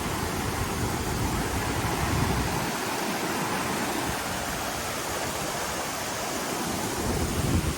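Steady rushing of water from a rain-swollen mountain waterfall, with extra low rumble in the first couple of seconds.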